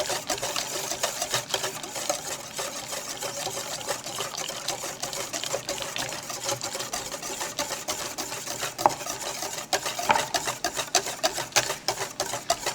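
A whisk beating the eggnog base of yolks, sugar, liquor, milk and cream in a bowl: rapid, continuous clicking of the whisk against the bowl.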